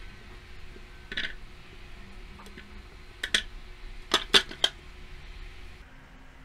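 Short sharp clicks and knocks of a clear plastic food-processor bowl being handled as peeled bananas go into it: one soft knock about a second in, two near three seconds, and a quick run of about four a second later.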